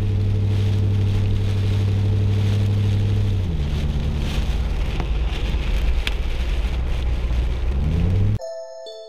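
Car engine running while driving, with road and wind noise. Its pitch drops about a third of the way in and climbs again shortly before it cuts off.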